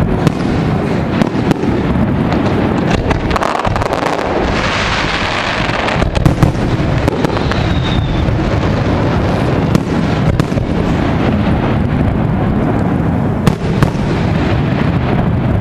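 Fireworks display: aerial shells bursting in a near-continuous barrage of booms and bangs with crackling, and a brief high whistle about eight seconds in.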